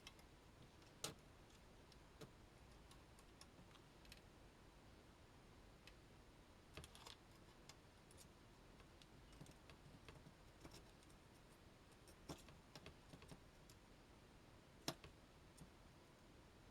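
Near silence with scattered faint clicks and taps from small hand tools and parts being handled at the workbench. A sharper click comes about a second in and another near the end.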